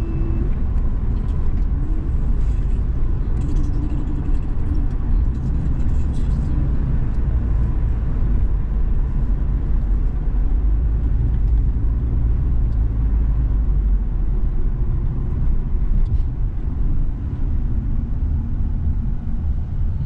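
Car driving along a road, heard from inside the cabin: a steady low rumble of tyres and engine.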